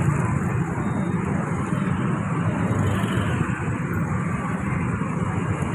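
Roadside traffic noise: a steady low rumble of motor-vehicle engines and tyres, with no horn sounding.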